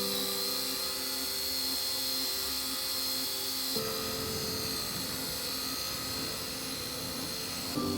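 Small cordless nano polisher running with a steady high whine while lightly polishing painted door jambs with a foam pad, over quiet background music.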